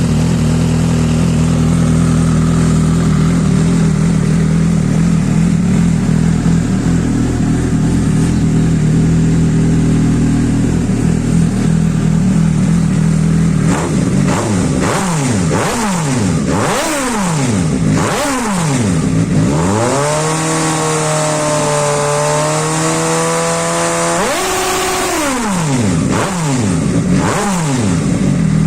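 Suzuki GSR 750's inline-four engine, loud, idling steadily, then from about halfway revved in a quick run of throttle blips that rise and fall. It is held at a higher rev for a few seconds, drops back suddenly, and is blipped again near the end.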